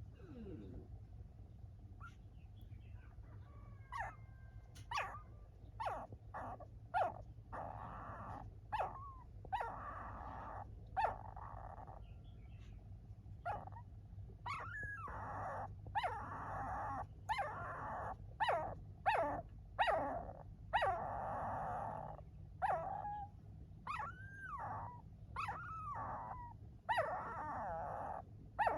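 Dogs whimpering and whining in many short, repeated cries, some longer and some gliding up and down in pitch, over a low steady hum.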